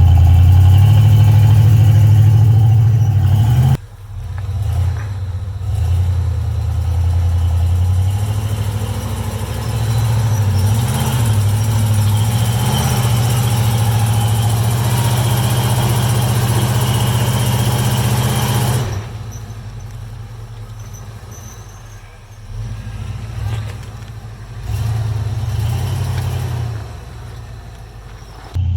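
Off-road Jeep engine working at low speed on a steep rock climb, revving up and down in short surges. Its loudness drops sharply about four seconds in and again a little past two thirds of the way through.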